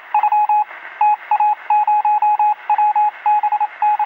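Rapid electronic beeps at one steady pitch, coming in quick groups of three to five with short gaps between them, like Morse code or telephone tones. They sound thin, as if through a radio.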